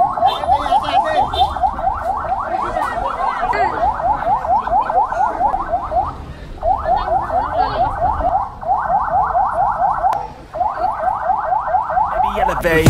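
Electronic vehicle siren yelping: quick rising whoops, about seven a second, in four runs with short breaks about six, eight and a half and ten seconds in.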